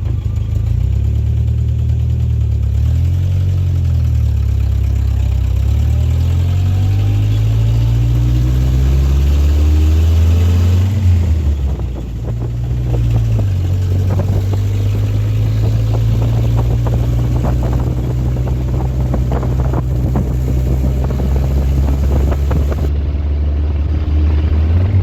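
1956 Willys Jeep CJ5's engine running as the jeep drives. Its note rises and falls over the first ten seconds, dips about halfway through, then holds steady at a cruising pace.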